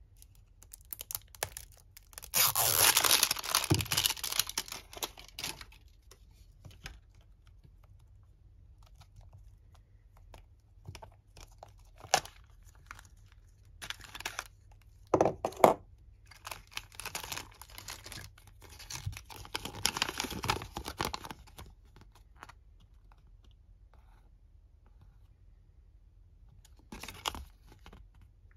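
Plastic tear strip being pulled off a gacha capsule: a loud tearing rasp for about three seconds near the start. Then sharp plastic clicks and bouts of crinkling as the capsule is opened and the toy's plastic bag and paper leaflet are handled.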